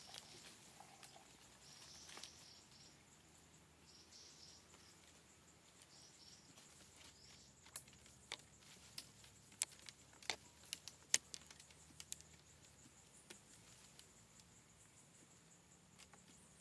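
Faint outdoor ambience with a steady high insect drone, a few soft rustles in the first seven seconds, and a run of sharp clicks or snaps between about eight and twelve seconds in.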